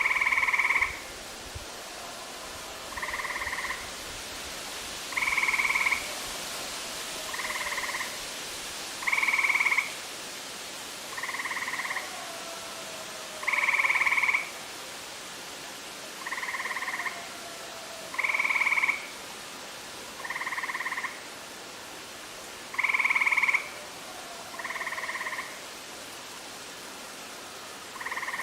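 Frogs calling: short trilled calls under a second long, repeating evenly about every two seconds. Louder and softer calls alternate, as if two frogs were answering each other.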